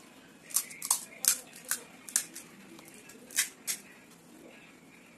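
Close-up eating sounds: about seven sharp wet clicks and smacks of chewing and handling food over the first four seconds, then it goes quiet.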